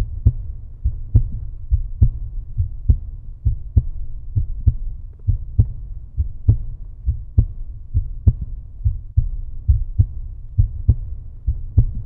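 Deep, regular thumps, about two to three a second, over a continuous low rumble: a heartbeat-like pulse effect on the soundtrack.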